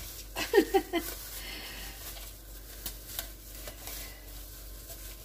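Plastic shower cap being stretched over the rim of a stainless steel mixing bowl, rustling and crinkling, with a few short squeaky sounds about half a second in.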